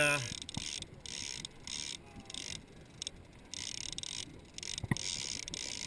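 Large conventional trolling reel being cranked against a hooked fish, its gears whirring in short repeated runs with the turns of the handle. One sharp click about five seconds in.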